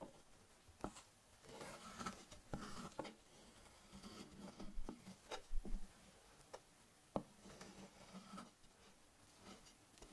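Metal cake scraper and offset spatula smoothing whipped cream over a layered sponge cake: faint scraping and rubbing, broken by a few sharp clicks and taps of the metal on the cake board.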